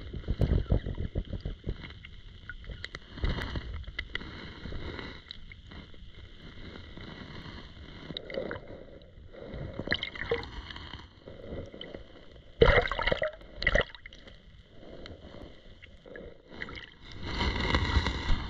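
Muffled water sloshing and gurgling heard from underwater, picked up by an action camera in its waterproof housing as a person wades and moves his arms in the water above it. The sound comes in uneven surges, with louder splashing a little past the middle and again near the end.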